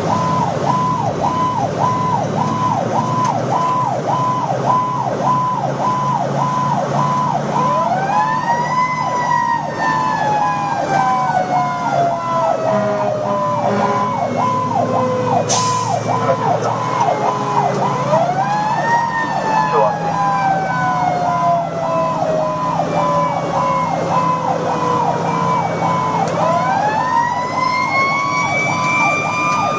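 Fire engine sirens on an emergency response: an electronic siren yelps in a rapid, steady pattern throughout, while a second siren winds up three times, each time rising quickly and then falling slowly. The truck's engine runs underneath.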